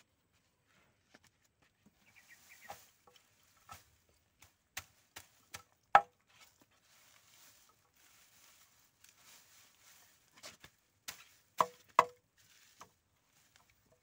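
Machete chopping the root ends off harvested lemongrass clumps against a wooden plank: scattered sharp chops, the loudest about six seconds in and a close pair near the end, with rustling of the stalks and roots between.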